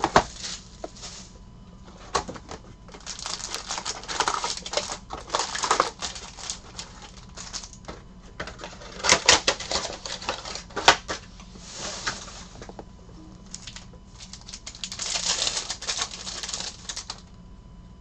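Rustling and crinkling as a trading-card box and its foil packs are handled, in uneven spells, with several sharp clicks and taps in the middle as cards are squared up and sorted by hand.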